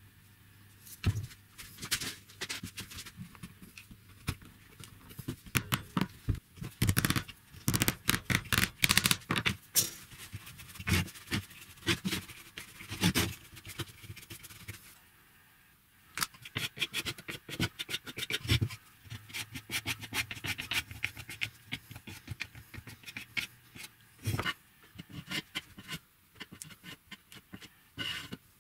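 Wooden parts and hand tools being handled on a wooden workbench: a run of sharp knocks, taps and scrapes, busiest in the first half, with a brief lull about halfway.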